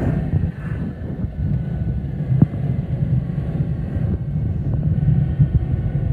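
Cessna Citation XLS heard from inside the cockpit during landing as it reaches the runway: a steady low rumble of the airframe and wheels with a faint steady whine above it.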